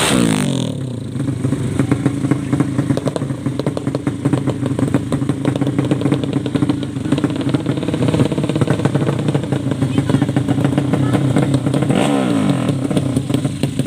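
Modified drag-racing motorcycle engine. Its revs fall away just after the start, then it runs steadily at a fast idle with a rapid, uneven crackle, and it revs and drops again about twelve seconds in.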